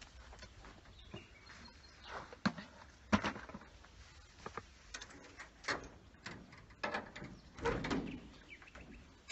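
Scattered knocks and scuffs of a pot being lifted and carried up loose stone steps, then a metal caravan door handle and latch rattling near the end.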